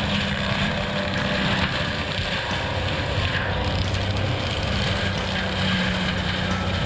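Bobcat T870 compact track loader's diesel engine running steadily with the forestry mulcher attachment working, a humming engine note under a dense rushing noise.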